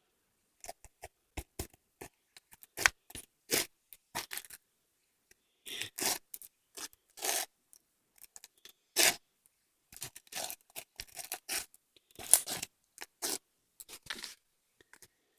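Slime being handled, giving an irregular run of short clicks and crackles mixed with longer scraping, squishing smears, some sharp and loud.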